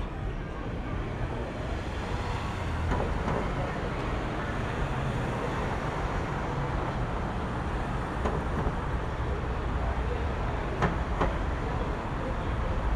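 City street ambience: a steady rumble of traffic and passing vehicles, with a few short sharp clacks in the last few seconds.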